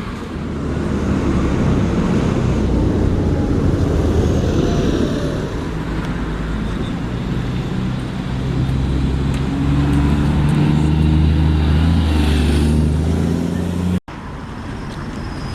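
A heavy road vehicle's engine running in street traffic, louder for a few seconds, then pulling away with its pitch slowly rising. The sound breaks off abruptly near the end, at an edit.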